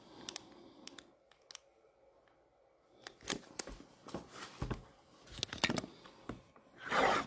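Trading cards and pack wrappers being handled: a few faint clicks, then scattered short rustles and clicks from about three seconds in, and a longer rustle of wrapper near the end.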